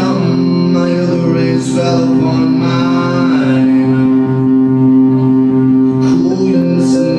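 Live band music: guitar, upright bass and drums playing over a held, sustained chord, with a few sharp cymbal-like hits.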